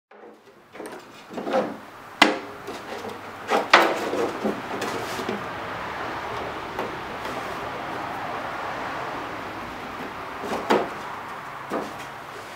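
Thin cedar strips knocking and rubbing against each other as a strip is pressed and slid into place on a strip-built canoe hull: a few sharp wooden clicks over steady scraping.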